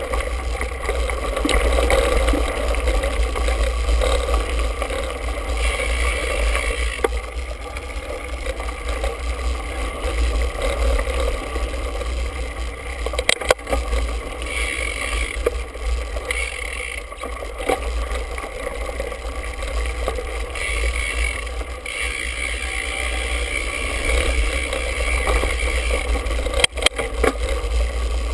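Mountain bike ridden over a dirt singletrack, heard through a handlebar-mounted GoPro: a steady wind rumble on the microphone with the rattle of the bike over rough ground, and a couple of sharp knocks from bumps, one about halfway through and one near the end.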